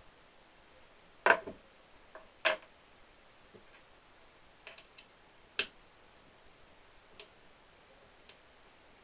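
Scattered sharp clicks and taps of hand tools and small parts being handled while the RC truck is taken apart. Three louder knocks stand out, about a second, two and a half, and five and a half seconds in, with fainter ticks between and after.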